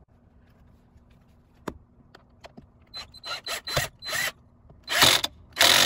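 Cordless drill/driver running a Phillips head screw into a visor clip bracket in short pulses: a few light clicks, then a quick run of short bursts and two louder bursts near the end.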